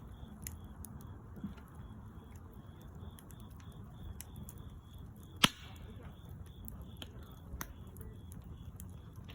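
Campfire crackling, with scattered sharp pops over a low steady rumble and one loud snap about five and a half seconds in. A high chirp pulses steadily about twice a second behind it.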